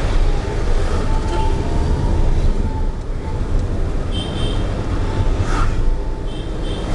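Steady road and engine rumble inside a moving car's cabin. A couple of short high-pitched tones come through about four seconds in and near the end.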